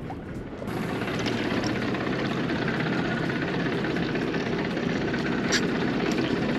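Boat engine running steadily with wind and water rush, coming up suddenly less than a second in and holding steady after.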